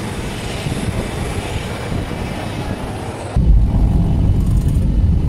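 Airliner noise: first a steady jet hiss with a faint high whine at the boarding door, then, after a sudden cut a little past three seconds in, a loud low rumble inside the cabin as the plane rolls along the runway.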